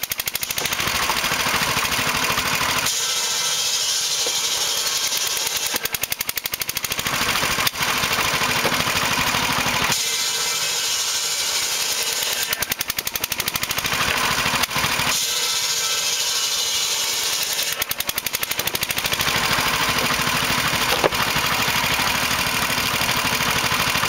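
Old belt-driven circular saw in a wooden frame cutting firewood logs. The blade's rasping whine through the wood swells and dies away several times over a steady, rapid chugging of the engine that drives it.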